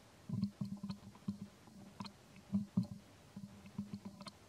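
Baby macaque suckling at its mother's nipple: an irregular run of short, soft, wet sucking clicks, about three or four a second.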